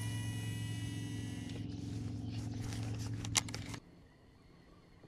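Boat motor running with a steady hum, then switched off suddenly about four seconds in. A sharp click comes just before it stops.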